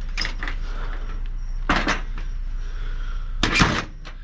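Two sharp knocks of scrap being handled, about a second and a half apart, the second one louder, over a steady low hum.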